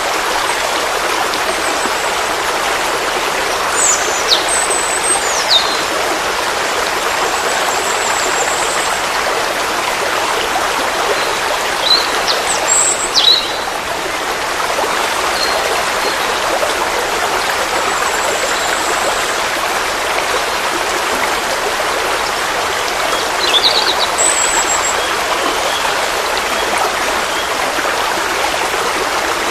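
Forest stream flowing in a steady, even rush of water. Short high bird chirps break in a few times, around 4 to 6 seconds in, around 12 to 13 seconds in, and near 24 seconds in.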